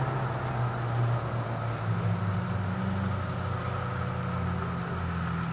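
A vehicle engine idling steadily, a low hum with a slight shift in pitch about two seconds in.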